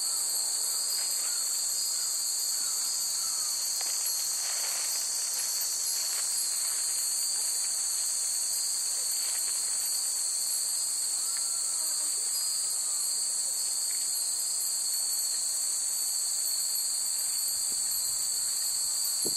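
Steady high-pitched drone of insects at dusk, with faint scattered tinkles of glass wind chimes (fūrin) stirring in the breeze.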